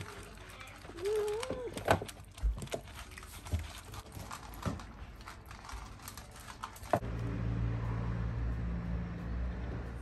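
A cat meows once about a second in, the call rising and falling in pitch. Around it come sharp clicks from food bowls being set down and several cats eating dry food. About seven seconds in, the sound changes to a steady low rumble.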